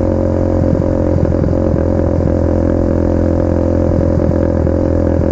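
Motorcycle engine running steadily at constant revs.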